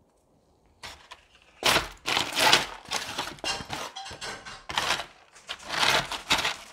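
Green plastic scoop scraping and digging through gritty potting mix with masa (granular decomposed granite) in a plastic tub: a run of rough, gravelly scrapes that starts about a second in.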